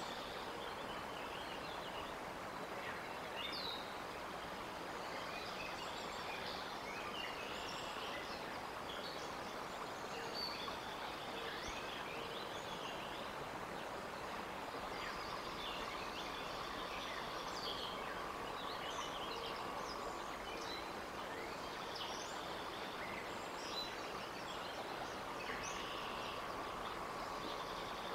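Outdoor ambience at a treetop nest: a steady hiss with many small songbirds chirping and trilling in the surrounding trees, and a faint steady hum joining twice in the second half.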